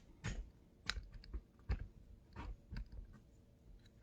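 A few light clicks and knocks at uneven intervals, about seven in all: kitchen handling noises.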